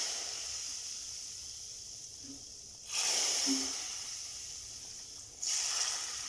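Hot tempering oil with cumin and nigella seeds hitting a pot of chicken-chickpea curry, sizzling with a sharp hiss. The sizzle dies down, then flares up again twice, about three seconds in and near the end, as more of the hot oil goes in.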